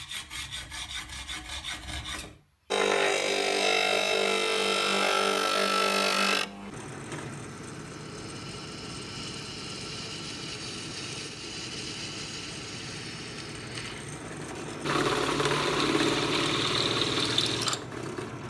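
A hacksaw cutting a steel angle bracket held in a vise, in rhythmic strokes for about two seconds. Then a drill press runs steadily, drilling and countersinking a hole through the cut steel plate, loudest for a few seconds soon after it starts and again near the end.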